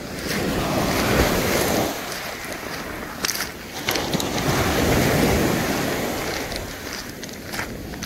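Small sea waves breaking on a pebble beach and washing up the shore in two surges of foam, each swelling and fading over a couple of seconds.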